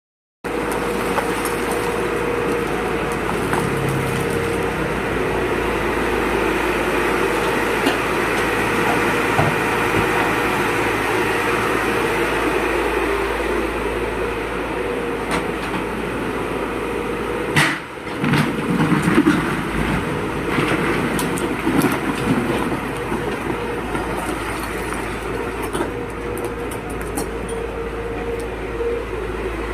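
An excavator's diesel engine running steadily, with a constant whine over its rumble. About 18 seconds in, the sound briefly drops out, then a few louder surges follow.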